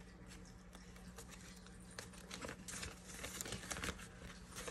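Paper banknotes and a clear plastic binder pocket rustling and crinkling as bills are handled and slid in. Quiet for about the first two seconds, then a run of short, light crinkles and taps that grows busier toward the end.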